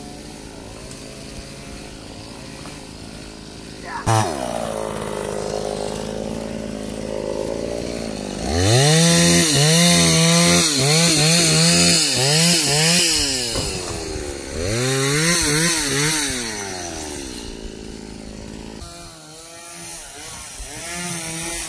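Stihl chainsaw cutting teak. It runs steadily at first and picks up sharply about four seconds in. About halfway through it revs hard in two long spells of repeated rising-and-falling surges as the chain bites and bogs down in the wood, then eases back near the end.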